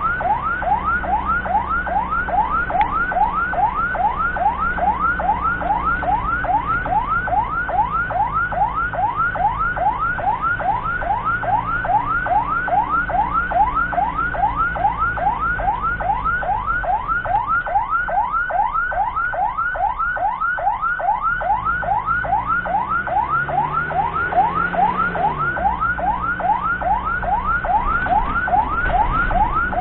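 Ambulance siren on a fast yelp: a rising wail repeating about three times a second without a break, over the steady low hum of the vehicle's engine.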